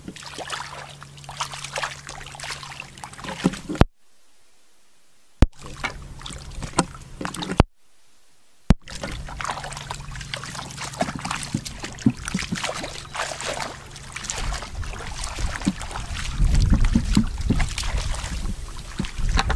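Hands splashing and sloshing in shallow muddy water, with sharp clicks; the sound cuts out briefly twice, and a low rumble grows near the end.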